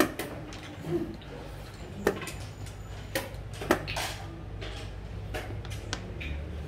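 Sharp clacks of xiangqi pieces being set down and moved on a wooden board, about half a dozen separate knocks over a low steady hum.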